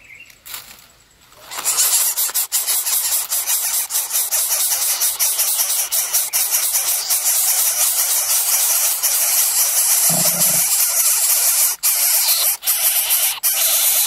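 Coucal nestlings begging as a parent brings food, a loud continuous hiss that starts about two seconds in and carries on with brief breaks, with a short low sound partway through.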